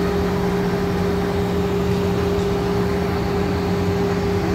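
Steady drone of running machinery: a constant low hum with two held tones over a rumble, unchanging throughout.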